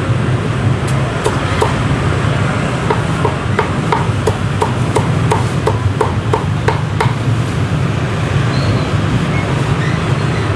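Cleaver chopping roast pork: a run of quick, sharp chops, about three a second, that stops after about six seconds, over a steady low rumble.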